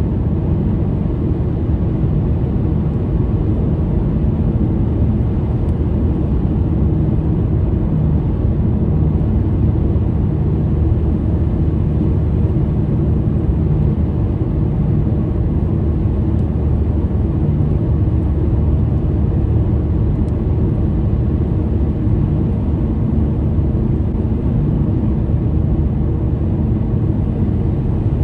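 Steady low road and engine noise inside a moving car's cabin, unchanging throughout.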